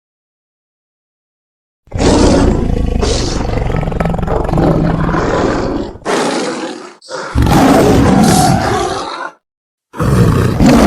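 Big-cat roar sound effects used as the voice of a sabre-toothed cat (Smilodon fatalis). After about two seconds of silence comes a long loud roar of about four seconds, then a short growl, another roar of about two seconds, and a fourth roar starting near the end, with brief silent gaps between them.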